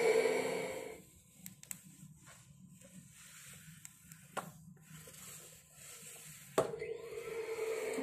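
Fisher-Price toy vacuum cleaner playing its vacuum-cleaner sound effect, a steady hum that fades out about a second in. A few light clicks follow while the toy is pushed about, then a sharp click near the end and the hum starts again.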